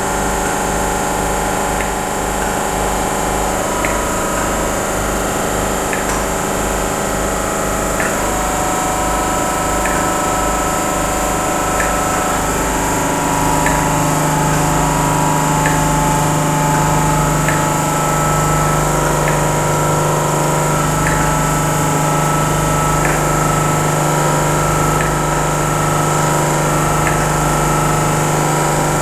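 Class 87 electric locomotive standing with its on-board machinery running: a steady mechanical hum of several held tones over a low, fast pulsing. The tones shift a few times, the hum steps up slightly about halfway through, and a faint tick comes about every two seconds.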